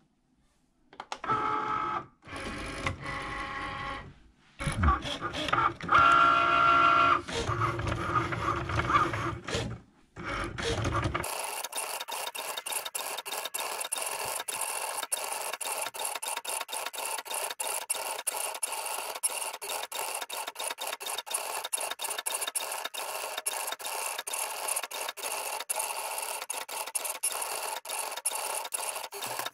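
Cricut Maker cutting machine at work: irregular bursts of motor whirring as the mat feeds in. From about eleven seconds in, a steady, rapid, even chatter as its motors drive the tool carriage and rollers over the cardstock.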